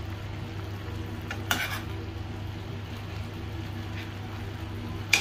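Chicken pieces frying in a stainless steel pan, sizzling steadily over a low hum, while a metal spoon stirs them, scraping the pan about a second and a half in and clinking sharply near the end.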